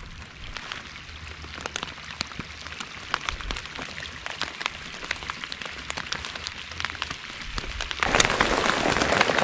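Rain falling on the water's surface: scattered drops pattering that grow denser, then a sudden downpour about eight seconds in that turns the patter into a loud, steady hiss.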